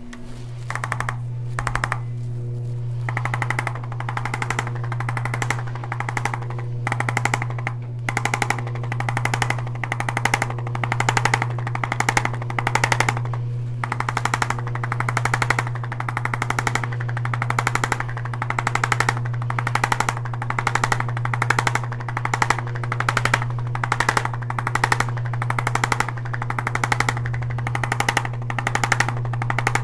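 Electric percussion massager running on the lower back muscles: a steady motor hum with rapid tapping that swells and fades about once a second as it is worked over the back.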